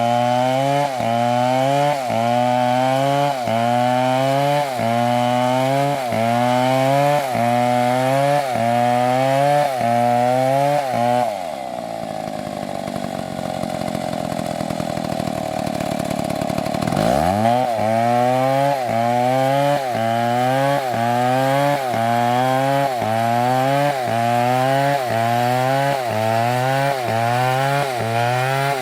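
Chainsaw engine running hard in a cut, its pitch rising and dropping in a regular rhythm about once a second as it loads and frees. A little over a third of the way in, the throttle comes off and the engine sinks toward idle. About six seconds later it revs back up and the rhythmic cutting resumes.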